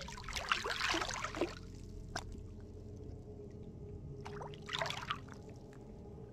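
A hooked wels catfish splashing at the water's surface as it is brought to the bank: a burst of splashing lasting about a second near the start, and a shorter one about four to five seconds in.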